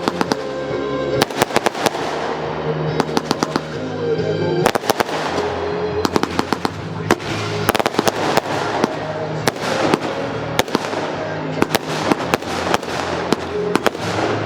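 Fireworks display: aerial shells bursting in sharp bangs, singly and in rapid crackling clusters, over loud recorded music.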